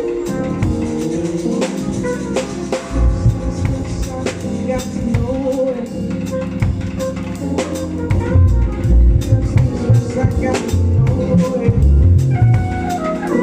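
Live band playing through a PA during a sound check: a drum kit with snare, rimshot and kick hits over deep bass notes and held chords. The bass grows heavier from about three seconds in.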